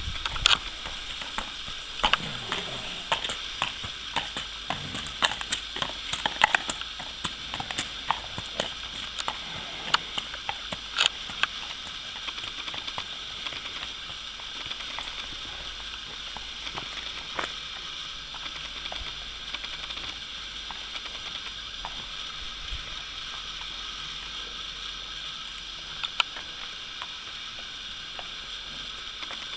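A trotting horse's hooves clip-clopping on a tarmac lane. The hoofbeats are loud for about the first ten seconds, then fade to faint, scattered clops over a steady hiss.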